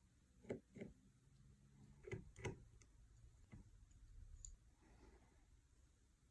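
Faint, sharp clicks and taps of small repair tools on the tiny screws and metal plate inside an opened iPhone 11 Pro, as the plate is unscrewed. They come in two close pairs, then one more click.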